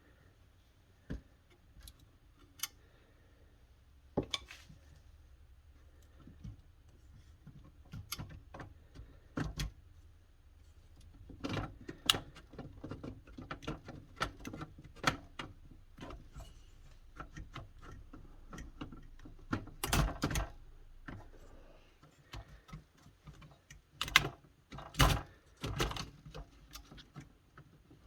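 Irregular clicks, taps and knocks of metal parts and screws being handled as a VCR's tape transport assembly is taken apart, with a few louder knocks in the last third. A faint low hum stops about two-thirds of the way through.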